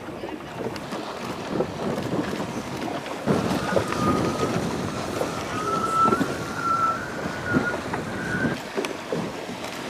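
Wind buffeting the microphone over choppy water, in gusts that grow stronger about three seconds in. A faint thin whistling tone wavers for about five seconds in the middle.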